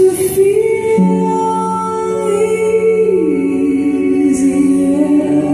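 Slow music: a sung melody in long held notes over sustained chords, the melody stepping down about three seconds in.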